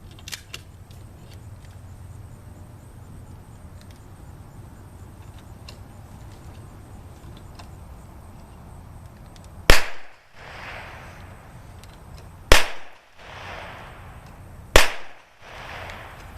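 Three gunshots, about two and a half seconds apart, each followed by a brief echo that fades out.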